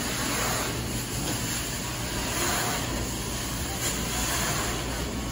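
Hot-water extraction carpet cleaning wand running on commercial carpet tile: a steady rush of vacuum suction and spray, swelling slightly as the wand is pulled across the carpet.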